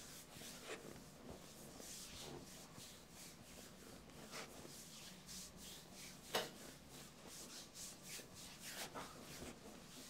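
Hands rubbing and kneading the bare skin of a thigh in a massage: a run of soft swishes, one after another, with a brief sharper click about six seconds in.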